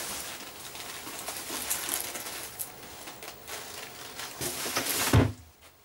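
Rustling and crinkling of a shrink-wrapped cardboard box of firecrackers being handled beside its cardboard carton, with a louder knock about five seconds in.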